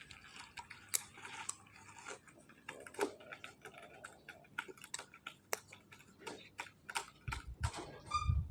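A cat chewing and biting its food: an irregular run of sharp little clicks and crunches, several a second, with a brief high-pitched squeak near the end.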